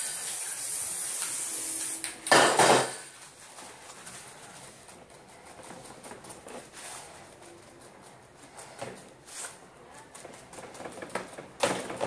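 Aerosol spray paint can hissing steadily for about two seconds, then a short, louder burst of noise. After that come quiet, scattered taps and rustles of crumpled paper being dabbed onto the wet paint.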